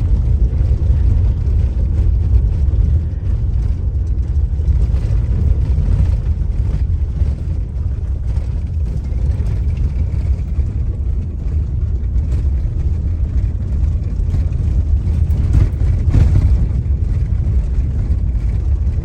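Car driving along a road: steady low rumble of road and engine noise heard from the moving vehicle.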